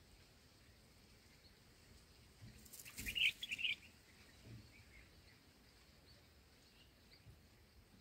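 A short burst of high chirps from red-whiskered bulbuls at the nest, with a brief rustle, about three seconds in, as the adult leaves the nestlings; otherwise faint outdoor background.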